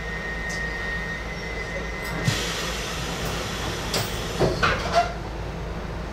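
Inside the cab of a Docklands Light Railway train: a steady low hum with a thin high tone that stops about two seconds in. The tone ends with a sharp knock and a hiss of about a second, and a few short clunks and clicks follow around four to five seconds in.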